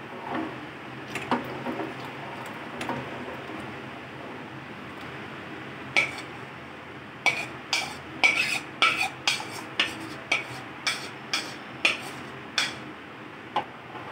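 Steel spoon stirring custard mix into hot milk, scraping and clinking against the bowl and the aluminium saucepan. From about six seconds in come sharp metallic clinks, roughly two a second.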